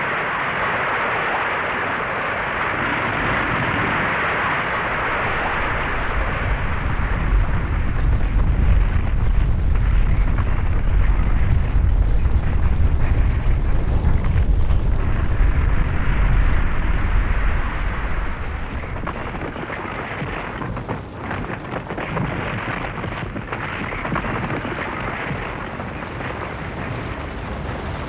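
Avalanche: a continuous rushing of snow with a deep rumble underneath that swells to its loudest about a third of the way in, then eases back to a lower, steady rush.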